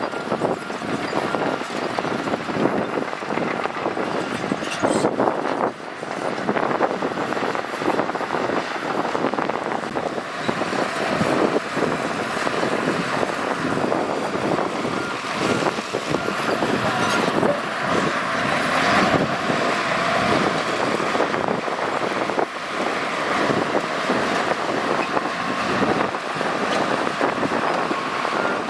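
Shantui bulldozer's diesel engine running steadily under load, with a rough stream of metallic clatter and knocks throughout.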